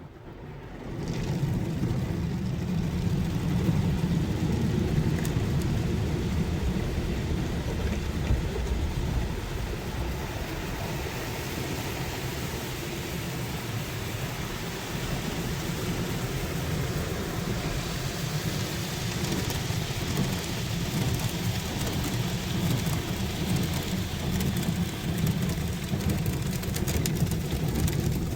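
Automatic car wash working over the car, heard from inside the cabin: a steady rushing noise of water spray with a low rumble, swelling up about a second in.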